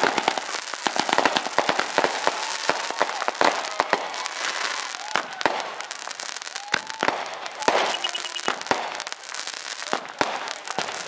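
Firecrackers or small fireworks going off in a dense, irregular run of sharp pops and crackles, with no let-up.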